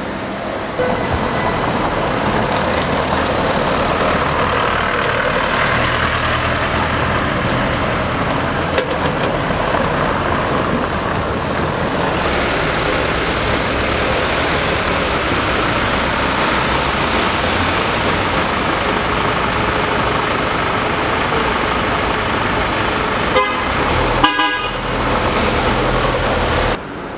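City street traffic: cars and a van driving past, with car horns honking. The sound cuts off suddenly near the end.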